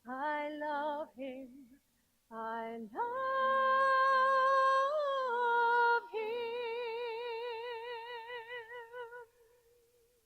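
A woman singing the final wordless notes of a song: a short phrase, then a long steady high note that steps down about six seconds in to a closing note with wide vibrato, which fades out near the end.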